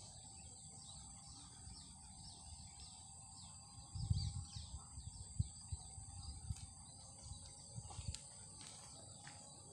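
Quiet rural ambience: a steady high insect drone, with a bird giving repeated short falling chirps for the first few seconds. From about four seconds in, irregular low thumps sound close to the microphone.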